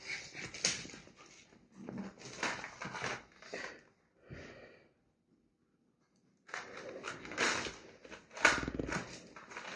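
A dog's excited greeting noises in short bursts, with about a second and a half of silence midway before they start again.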